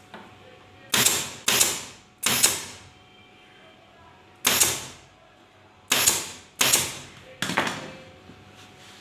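Staple gun fastening upholstery fabric to the underside of a bed frame, firing seven sharp shots, each fading over about half a second, in a quick group of three, then one, then another three.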